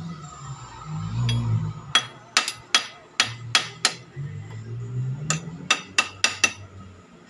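Hammer tapping on metal: about eleven sharp, ringing strikes in two quick runs, the first starting about two seconds in and the second a little over a second later.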